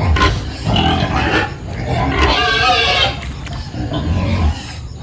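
Pigs squealing and grunting loudly at feeding time, calling for food, with the densest calls in the middle.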